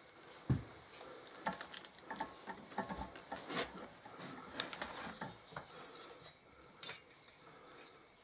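Small metal hardware and hand tools clinking and tapping in an irregular run of light clicks, with a duller knock about half a second in.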